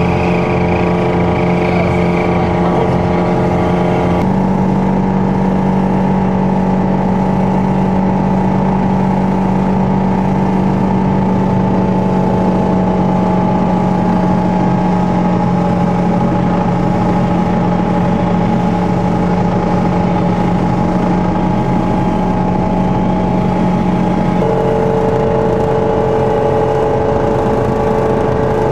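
Steady drone of an aircraft engine in level flight, several held tones at a constant pitch; the pitch steps abruptly about four seconds in and again near the end.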